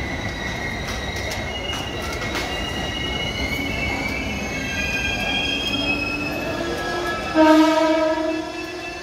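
Passenger train wheels squealing on the rails with high, shifting steady tones and a few metallic clanks as the train rolls slowly through the station. About seven and a half seconds in, a train horn starts suddenly and loudly, then fades.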